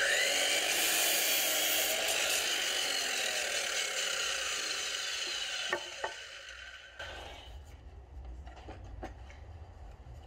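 DeWalt DWS780 12-inch sliding compound mitre saw whining up to speed and cutting through a 4x4 treated timber fence post, its pitch slowly falling over several seconds. It stops with two sharp knocks about six seconds in, followed by a few light clicks as the timber is handled.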